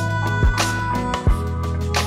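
Background music with drum hits and a held bass line.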